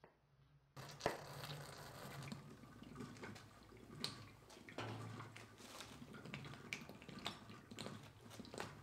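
Faint handling sounds of lab gear: light knocks and clinks as a metal stand and glass vessels are moved about on a stone slab, starting about a second in.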